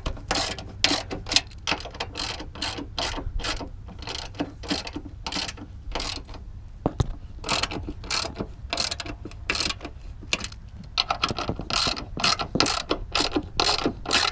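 Hand ratchet with a 13mm socket clicking in repeated runs of strokes as it tightens the nuts that hold a strut tower brace onto the strut tower studs.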